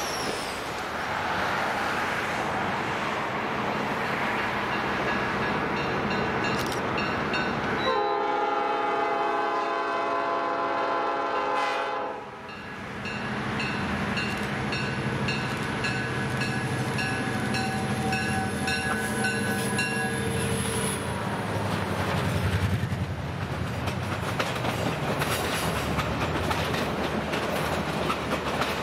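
A pair of EMD diesel locomotives, a GP-38 and a GP-35, running towards and under the listener. The air horn sounds one chord-like blast of about four seconds, about eight seconds in. The engines' drone follows as the locomotives pass, then the passenger cars roll by with their wheels clicking over the rail joints.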